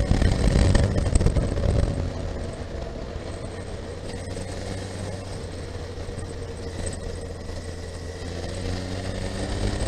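Honda CB1300SF's inline-four engine and road noise while riding, loud for the first two seconds, then easing off, and picking up again with a rising pitch near the end as the bike accelerates.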